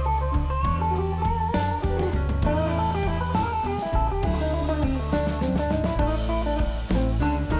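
Background music: a melodic electric guitar line over bass and a steady drum beat.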